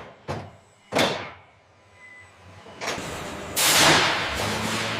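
Two sharp knocks, one just after the start and one about a second in, each fading quickly, then a longer, louder burst of noise past the middle that settles into a steady low hum.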